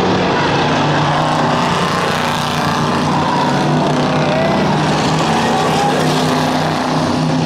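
Several cruiser-class stock cars racing on a short oval, their engines running together in a loud, steady drone whose pitch shifts as the cars circle the track.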